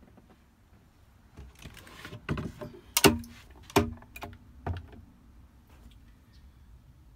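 A handful of hollow knocks and bumps with a short low ring after the loudest, most likely someone moving about and handling things in a small boat cabin. The two strongest come about three and four seconds in.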